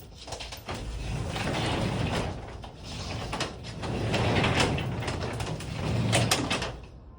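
Garage door moving along its tracks: a low rumbling hum that swells and fades a few times, with rattles and sharp clicks.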